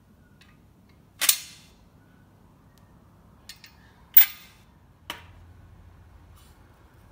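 Loose mild-steel sheet-metal brake duct pieces clanking against each other as they are handled: three sharp metallic clanks with a brief ring, about a second, four seconds and five seconds in, the second the loudest.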